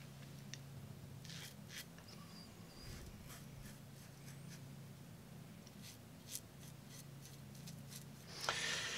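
Tatara Masamune safety razor with a Super Iridium blade scraping through lathered stubble in short, faint strokes, over a faint steady hum. A louder hiss starts near the end.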